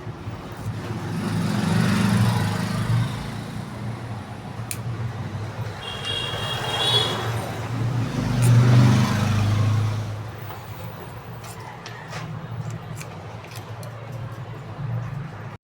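Road traffic passing: two vehicles swell up and fade over a steady low hum, with a short horn toot about seven seconds in.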